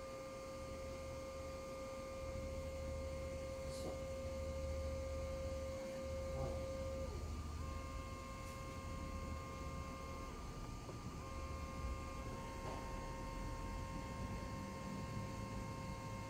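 Arduino-driven stepper motors of a drawer-slide CNC laser engraver whining steadily as they move the laser head. The tone breaks off and restarts a few times with small changes in pitch as the moves change, over a low hum.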